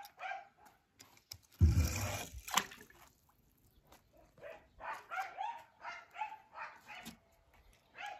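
A toy car splashes into a swimming pool about one and a half seconds in. Later a dog whines and yips in a string of short, high calls.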